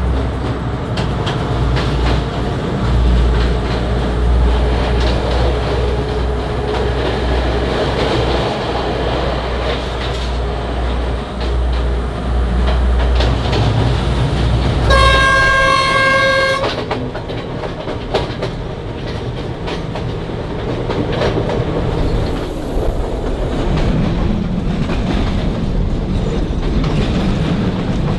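Diesel passenger train heard from the driver's cab, running with a steady low engine drone and wheels clattering over the rails. About halfway through, the train horn sounds one blast of under two seconds. After the blast the deep engine drone drops and the wheel clatter carries on.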